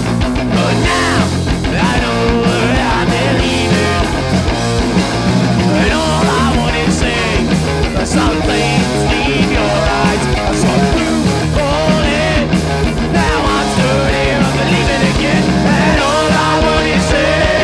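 A punk/grunge rock band playing live at full volume, an instrumental passage with no vocals.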